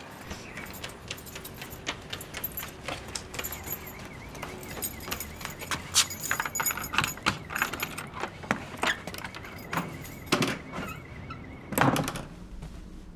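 Hurried footsteps, then a bunch of keys jangling and clicking in a front-door lock. Near the end the door opens and shuts with two heavy thuds.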